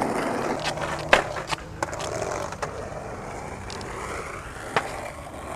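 Skateboard wheels rolling over rough asphalt, with a few sharp clacks from the board, the loudest about a second in.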